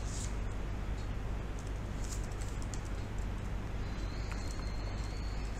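A few scattered keystrokes on a computer keyboard as code is typed, over a steady low electrical hum and hiss.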